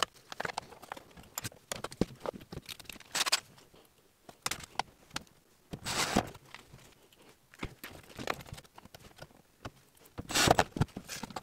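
Ryobi cordless drill/driver running in a few short bursts as it drives screws through a plastic controller mounting plate into a caravan's wooden wall panel, with clicks and knocks of handling between the bursts.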